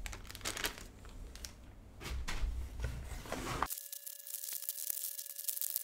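Plastic bag crinkling and cardboard jigsaw pieces shuffling. A little over halfway through the sound changes abruptly to faint light clicks and scraping of puzzle pieces slid across a tabletop, over a faint steady hum.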